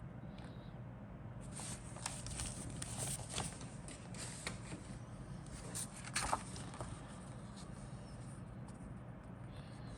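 Crinkly rustling of kit packaging being handled, plastic bags or paper, with a few sharper clicks, from about a second and a half in until about seven seconds; a steady low hum underneath.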